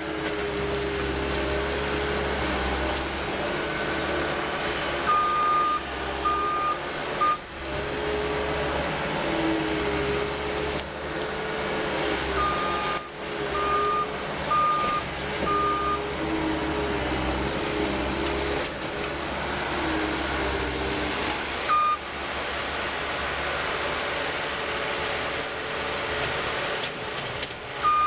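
New Holland L230 skid steer loader's diesel engine running under load, its pitch rising and falling as the machine works. Its backup alarm beeps in several short runs of evenly spaced beeps as it reverses.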